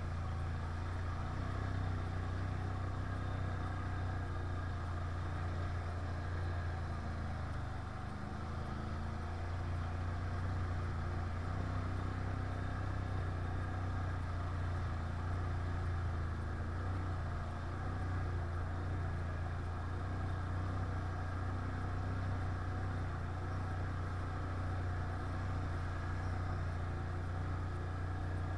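Can-Am 1000 quad's engine running at a fairly even pace on an off-road ride, a steady low drone with little revving.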